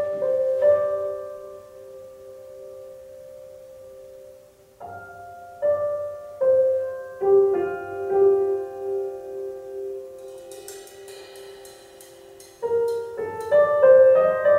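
Piano music playing over a hi-fi system's loudspeakers in a live, untreated room: slow piano chords left to ring out, with a few soft cymbal strokes about ten seconds in.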